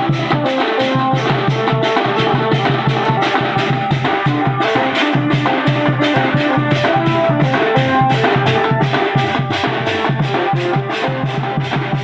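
Koraputia band party playing Desia dhemsa dance music: large barrel drums beating a fast, even rhythm under a melody of held notes.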